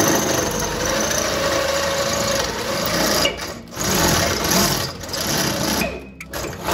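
Power drill boring out a broken bolt stuck in a steel car frame, running with a wavering whine. It stops briefly about three and a half seconds in and again near the end.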